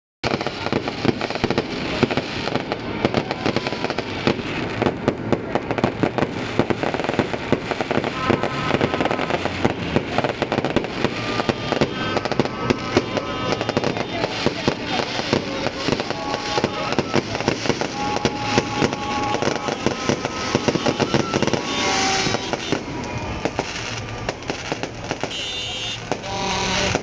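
Fireworks going off in a dense, continuous barrage of sharp pops and crackles, with short steady tones heard now and then through the middle.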